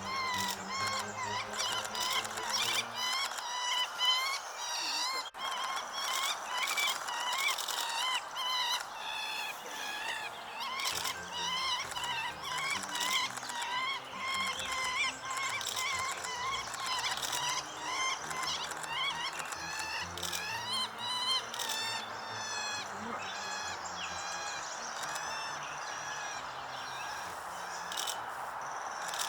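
Birds singing and chirping, many quick overlapping calls, over low, steady sustained tones.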